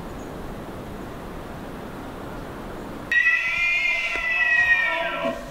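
A steady rushing background noise, then, about three seconds in, a bull elk bugles: one loud, high whistling call held for about two seconds that slides down in pitch at the end.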